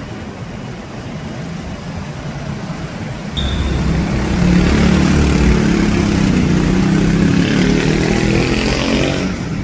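Road traffic noise. About three seconds in, a motor vehicle's engine suddenly comes in loud and close and stays loud, with a brief high squeal as it starts.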